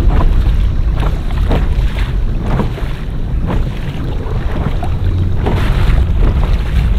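Kayak moving across choppy water, with short splashes of water against the hull or paddle coming roughly every second over a heavy rumble of wind on the microphone.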